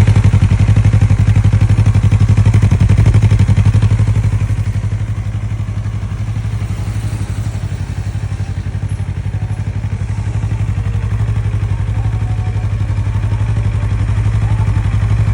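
Yamaha MT-03 parallel-twin engine idling steadily through an aftermarket Dirzars slip-on exhaust tip fitted to the stock header pipe, with a deep, even pulsing exhaust note. It gets a little quieter through the middle and louder again near the end.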